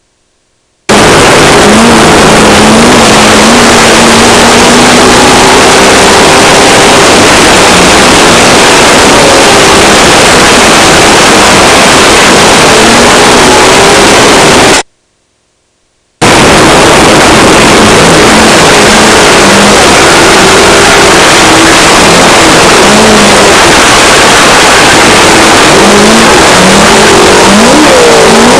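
Onboard sound of an off-road race car driven hard: a loud, overloaded rush of noise from the rough ride, with the engine's pitch rising and falling underneath. The sound cuts out completely for a moment at the start and again about halfway through.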